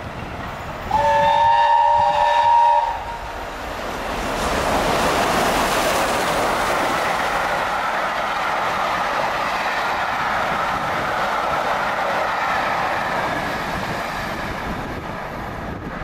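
Steam locomotive 60163 Tornado, a three-cylinder Peppercorn A1 Pacific, sounds its whistle, a steady chord of several tones lasting about two seconds. It then passes at speed with its coaches: a loud rush of steam exhaust and wheels on rail swells up, holds, and eases off near the end as the train draws away.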